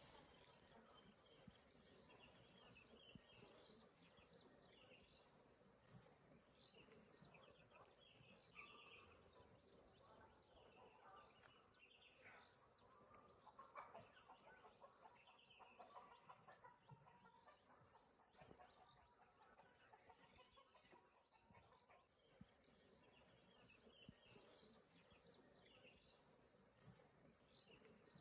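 Near silence: faint outdoor ambience with a steady high insect drone and scattered faint bird chirps.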